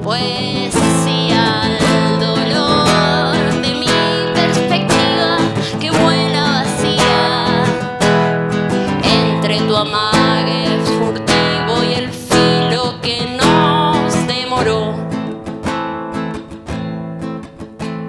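Nylon-string classical guitar strummed in a steady rhythm, with a wordless singing voice wavering above the chords at times; the playing grows quieter near the end.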